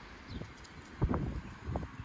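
Wind buffeting the microphone as a low rumble, with two louder low thumps, about a second in and again near the end.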